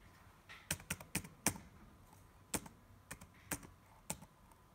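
Laptop keyboard keys tapped about ten times at an uneven pace, in small clusters, as a card number is typed in.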